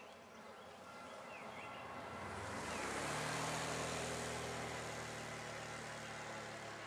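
Approaching diesel freight locomotive: a steady low engine drone sets in with a rushing noise that swells to a peak about three seconds in and slowly eases off.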